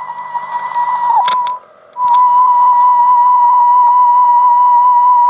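Sanyo MR-410E cassette recorder playing a steady 1 kHz test tone through its speaker, wavering slightly: wow from the makeshift rubber-band drive belts. About a second in, the tone sags in pitch, clicks and cuts out briefly, then comes back louder and steady.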